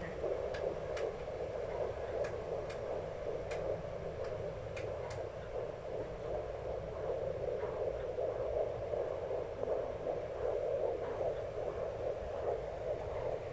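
Handheld fetal Doppler's loudspeaker giving a steady whooshing hiss as its probe rests on a pregnant belly, with scattered small clicks in the first few seconds.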